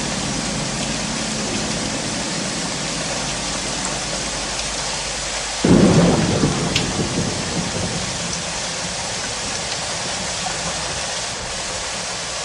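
Steady rain with a sudden crack of thunder about halfway through that dies away over a couple of seconds.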